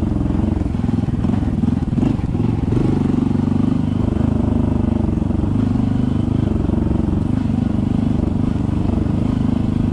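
Honda CT125 motorcycle's single-cylinder four-stroke engine running steadily at an even, moderate pace while riding a dirt trail.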